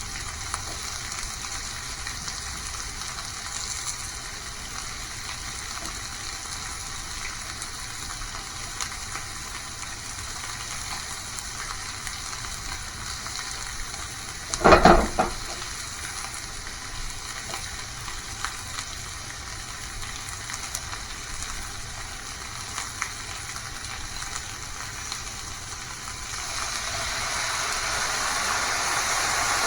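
Food sizzling and crackling in a frying pan, with a brief loud clatter about halfway through; the sizzle grows louder near the end.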